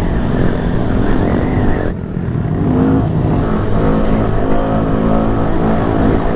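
Honda Grom's small single-cylinder four-stroke engine running under way, with wind noise over the microphone. The sound dips briefly about two seconds in, then the engine picks up revs and runs steady.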